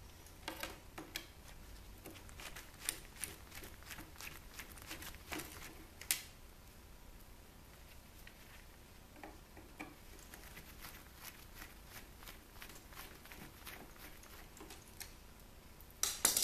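Faint, scattered clicks and light taps of a screwdriver and loose parts being handled while a CD changer is taken apart, with a sharper click about six seconds in and a louder clatter at the very end.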